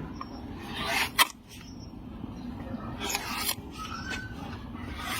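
A hoof rasp filing a donkey's hoof in long scraping strokes, with a sharp click about a second in.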